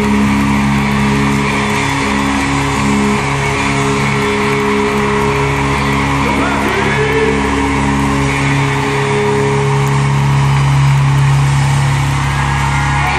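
Live concert music played loudly through an arena sound system, with long held low notes and constant crowd noise.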